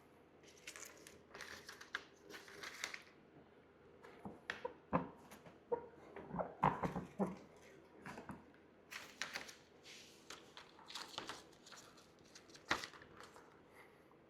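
Hands working a vinyl graphics sticker onto a dirt bike's plastic number plate: irregular rustling and rubbing of the vinyl and its backing, with scattered small taps and clicks, the loudest a sharp tap near the end.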